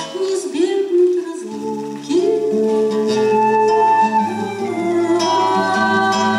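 Instrumental interlude: a svirel, a wooden end-blown folk flute, plays a flowing melody with notes that glide into one another, over a plucked acoustic guitar accompaniment.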